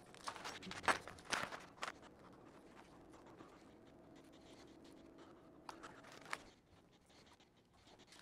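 Faint handling sounds: soft rustling with a few light clicks and taps, clustered in the first two seconds and again around six seconds in, from hands working a seed packet and toothpick label flags over plastic seed-starter trays of rockwool cubes.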